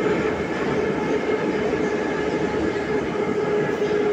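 Metro train running through a tunnel, heard from inside the car: a steady rumble of wheels on rails with a constant hum.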